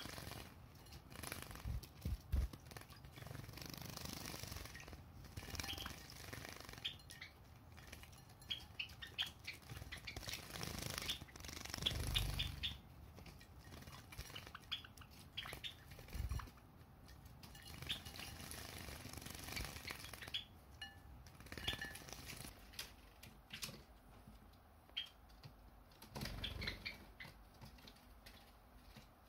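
Java sparrows bathing in shallow dishes of water: wings fluttering and splashing, with short high chirps scattered throughout.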